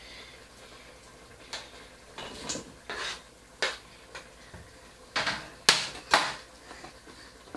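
Kitchen knife knocking and scraping on a plastic cutting board as chopped potato and carrot are scraped off it into a steel cooking pot, then the board clattering down on the worktop. Irregular separate knocks, the loudest two about two-thirds of the way through.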